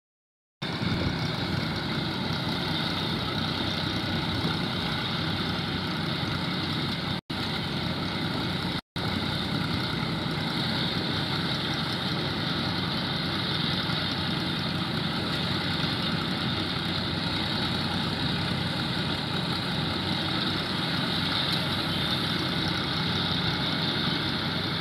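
Massey Ferguson diesel tractor engine running steadily under load, driving a stationary threshing machine, with the thresher's drum running along with it as crop is fed in. The sound cuts out for an instant twice.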